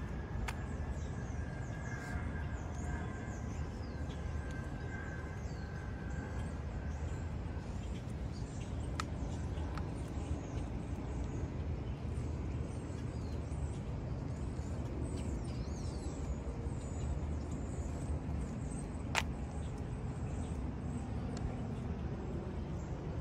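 Outdoor ambience: birds chirping over a steady low rumble, with a few sharp clicks, one louder than the rest about three quarters of the way through.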